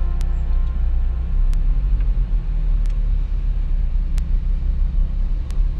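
Car driving, a low steady rumble of engine and road noise, with faint sharp ticks about every second and a quarter.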